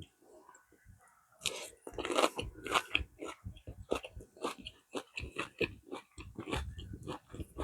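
A person biting and chewing crunchy food close to the microphone: a quick, irregular run of crunches, several a second, starting about a second and a half in.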